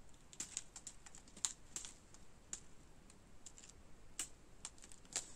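Faint, irregular light clicks of diamond-painting rhinestones shifting and tapping inside a strip of small plastic zip bags as it is handled.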